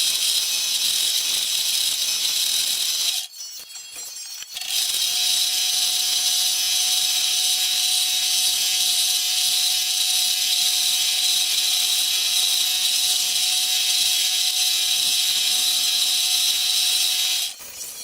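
Small electric power tool running steadily at one speed. It is switched off about three seconds in, started again a second and a half later, and stops near the end.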